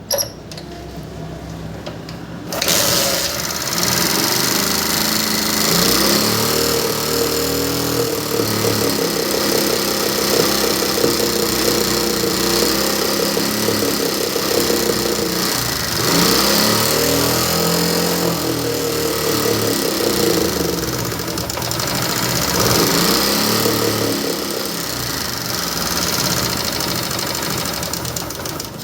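Small Chinese motorcycle engine catching about two and a half seconds in, then running roughly and being revved up and down a few times. It sounds very bad and won't take revs, with the noise coming out through the air cleaner instead of the silencer.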